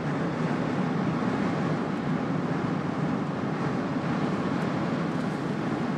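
Steady road noise of a moving car heard from inside the cabin: a low rumble of tyres and engine.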